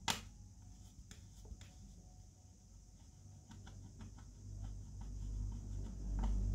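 A thumb rubbing and pressing on the shiny metal body of a drink dispenser, checking a blemish on the surface: faint rubbing with light clicks, one sharp click right at the start, and a low handling rumble building near the end.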